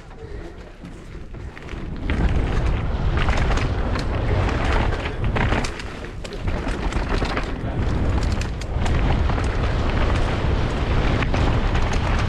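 Wind buffeting a GoPro's microphone as a downhill mountain bike descends fast, with clattering knocks from the bike over rough ground; it grows loud about two seconds in.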